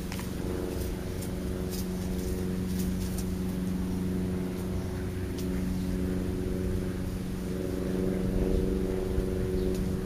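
A motor running steadily: a low, even hum with several overtones, a little louder in the last couple of seconds, with a few faint ticks over it.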